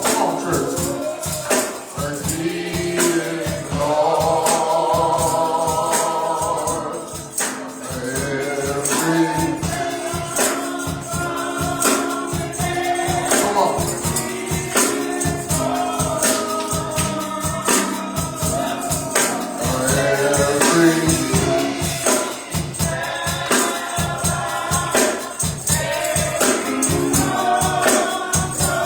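Gospel choir singing with band accompaniment over a steady, driving percussion beat.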